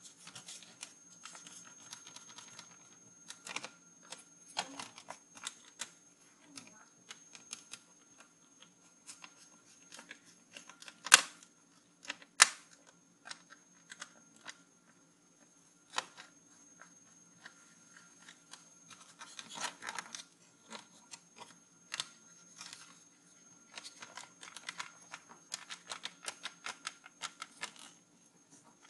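Scattered clicks, taps and light scraping of a screwdriver and fingers on the plastic chassis of an internal IDE CD-ROM drive being taken apart, with two sharp clacks about a second and a half apart near the middle.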